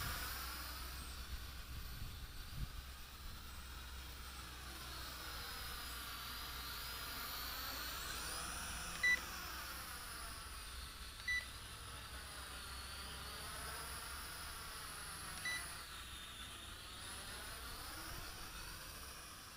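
JJRC H8D quadcopter's propellers whirring as it flies overhead and away, a steady whir with a phasing sweep as its height and distance change. Three short, high electronic beeps stand out, the first about nine seconds in.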